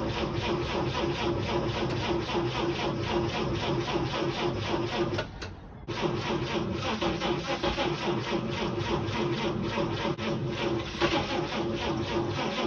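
1946 Chevrolet Fleetmaster's straight-six engine being cranked over on its starter motor, with a steady rhythmic chugging over the starter's whine, without catching. The cranking stops briefly about five seconds in, then starts again. This is a starting attempt on a makeshift gravity-fed fuel tank, after a suspected failed mechanical fuel pump.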